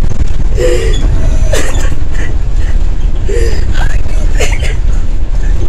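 Loud, steady rumble of a moving ambulance, heard from inside the patient compartment with the rear door open. A woman's short sobbing cries break over it several times.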